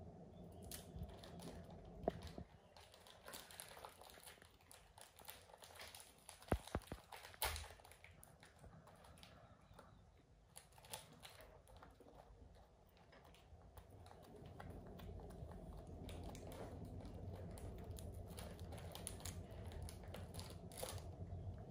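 Plastic snack-pack wrappers crinkling and rustling as they are handled, with many small scattered clicks and taps and a couple of sharper clicks about six and a half and seven and a half seconds in.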